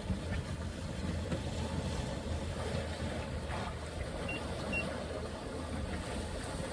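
Sailboat underway: a steady wash of wind and water with a constant low hum. Two short, faint electronic beeps come a little past the middle.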